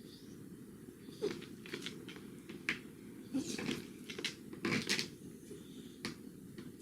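Dry dog food and a slow-feeder bowl clicking and rattling, about a dozen irregular light clicks and knocks over several seconds.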